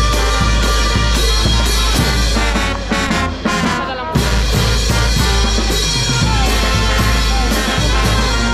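Band music with brass over a strong, steady bass, played loud. About three seconds in the bass drops out for roughly a second, then the full band comes back in.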